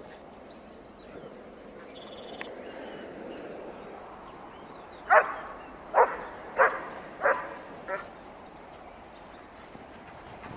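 A dog barking five times in quick succession, about two-thirds of a second apart, the last bark fainter.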